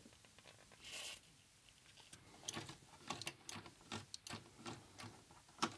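A brief hiss of contact-cleaner spray from an aerosol can about a second in, then a run of light, irregular clicks from the Atari 1050 floppy drive's door-closing lever and latch mechanism as it is worked by hand, roughly two clicks a second.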